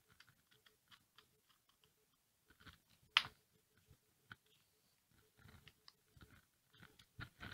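A hobby knife and a metal pick scrape and pry at a glued plastic servo cover under a decal on a foam tail fin. The result is faint scratching and small ticks, with one sharp click about three seconds in and a busier run of clicks near the end.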